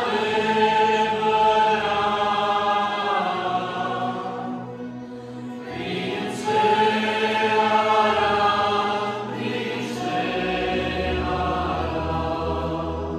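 A group of voices singing a slow hymn in long held phrases, with a short break between phrases about five seconds in.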